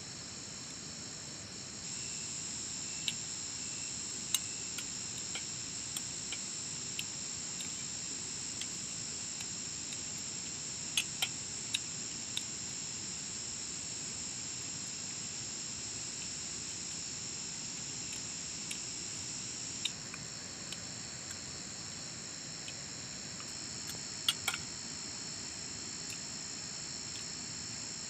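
Crickets trilling steadily in several high-pitched bands, an unbroken insect chorus that swells slightly about two seconds in, with scattered sharp clicks over it, a cluster of them about eleven seconds in and again near the end.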